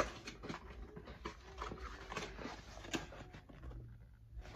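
Cardboard shipping box being torn open by hand: a run of small irregular scrapes, rustles and clicks of cardboard and paper, thinning out near the end.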